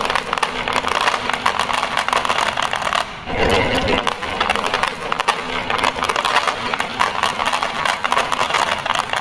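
Many glass marbles rolling down a wooden marble run of curved, scalloped segments, making a rapid, continuous clatter of glass clicking on wood and on other marbles. Some drop into the plastic bed of a toy dump truck. There is a brief lull about three seconds in.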